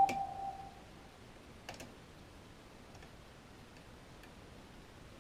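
Small metallic clicks of a lock pick working the levers of a Union Strongbolt five-lever mortice deadlock: a sharp click right at the start, a quick double click a little under two seconds in, and two fainter ticks later. A steady electronic tone fades out during the first second.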